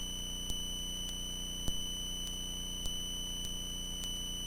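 Steady high-pitched electrical whine in the aircraft's radio and intercom audio feed between transmissions, with faint regular ticks a little under twice a second.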